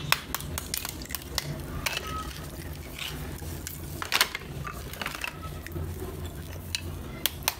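Brittle slabs of roasted multani mitti (fuller's earth) clinking and scraping together as they are handled, with a sharper crack about halfway through. There are quick taps of a small hammer on the clay at the start and again near the end.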